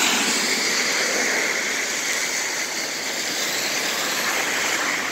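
Floodwater pouring down through a roadside storm drain grate, a steady rushing and splashing as the flooded road drains away through the freshly cleared drain.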